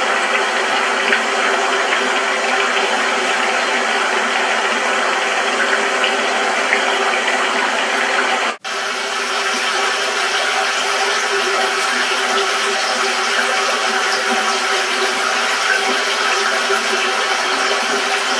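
Rushing water of a rocky stream: a steady, even wash of flowing water, broken by a brief dropout about eight and a half seconds in.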